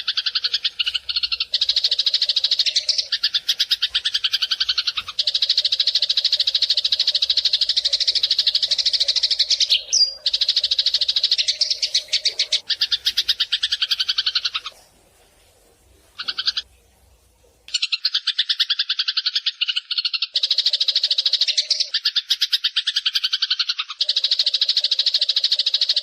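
Eurasian tree sparrow chattering: long runs of rapid, buzzy chirps lasting several seconds each, with a break of about three seconds in the middle.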